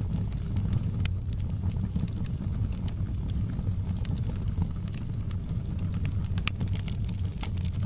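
Wood fire burning, with a steady low rumble under irregular sharp crackles and pops.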